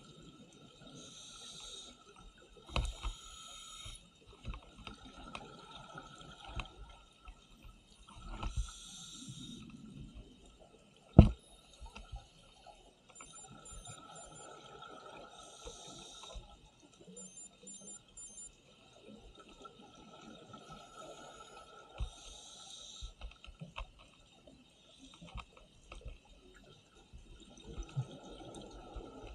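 Underwater sound of scuba diving, played at double speed: a diver's regulator exhaust bubbling in short hissing bursts every few seconds, over a faint steady tone and scattered clicks. One sharp knock about eleven seconds in is the loudest sound.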